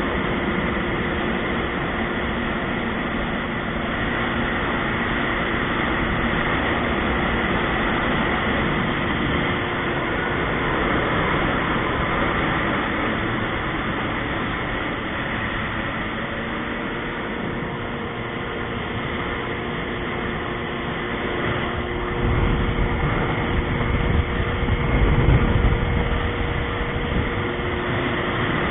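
Yamaha GP1300R jet ski's two-stroke three-cylinder engine running steadily underway, a constant drone mixed with rushing wind and water. About 22 seconds in, a heavier low rumble swells for a few seconds and then eases.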